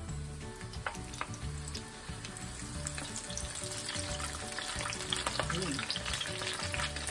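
Hot cooking oil in a wok sizzling and crackling as a shrimp and bean-sprout fritter (ukoy) is slid in off a slotted ladle and spatula to deep-fry. The crackle grows denser and louder after about three seconds.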